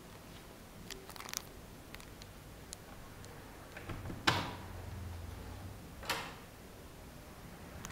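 Faint clicks from a door's lever handle and latch, then two sharper knocks about two seconds apart, the first the loudest.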